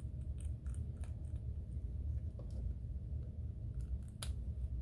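Faint scattered clicks and taps of small tools and fingers handling an opened iPhone 6s, with one sharper click about four seconds in, over a steady low hum.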